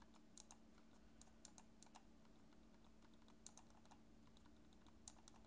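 Faint, muted single clicks of the Ugreen MU006 wireless mouse's silent-switch buttons, pressed one at a time at irregular intervals; there is practically no click noise on pressing.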